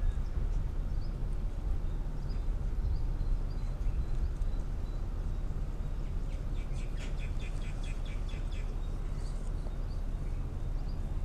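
A steady low rumble of background noise, with small birds chirping faintly; starting about six and a half seconds in, one bird gives a quick run of about ten chirps, some five a second.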